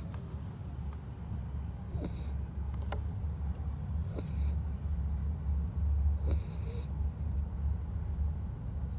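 Beagle puppy snoring in its sleep: a steady low rumble with a short hissing breath about every two seconds.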